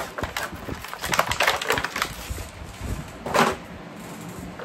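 Clear plastic blister tray and cardboard insert of an action-figure package crinkling and crackling as they are handled and pulled apart, with a louder crackle a little after three seconds in.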